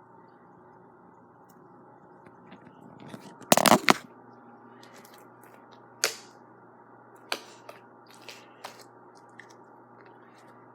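Slime being squeezed and worked by hand: a loud cluster of sticky pops and crackles about three and a half seconds in, then single sharp clicks and pops every second or so, over a steady low background hum.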